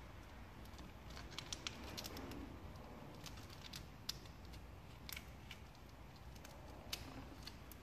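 Faint, scattered clicks and crackles of vinyl wrap film and a thin metal hand tool being worked along the edge of a plastic grille, over a low steady background hum.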